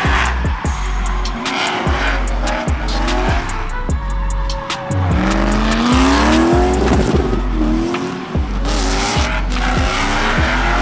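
Background music with a heavy, steady beat over a drifting car's engine revving up and down with tyres squealing.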